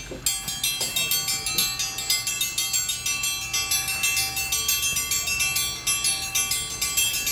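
Metal triangle rung rapidly and without a break, several strikes a second piling into a steady bright ringing. It is the feeding call that summons the monkeys to fresh fruit and vegetables.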